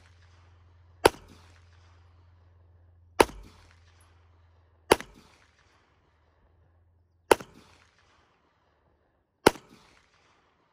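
Five 9mm pistol shots from a CZ Shadow 2 firing 147-grain hollow-point rounds, each a single sharp report followed by a short fading echo. The shots come one at a time at uneven gaps of roughly two seconds.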